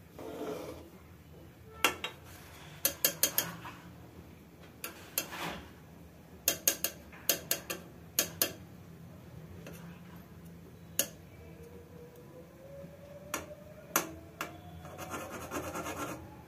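A metal spoon scraping and clinking against a steel kadhai while cream is stirred as it melts down for ghee, in irregular clusters of sharp clicks.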